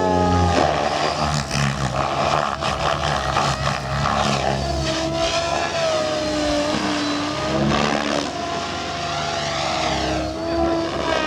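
Compass Chronos 700 radio-controlled helicopter flying aerobatics: its rotor and drive whine rises and falls in pitch repeatedly over a rushing rotor wash.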